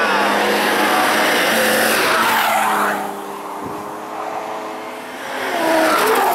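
Drift car engine revving hard with tyres squealing as it slides past, its pitch dropping as it goes by about three seconds in. A second car comes up and passes near the end.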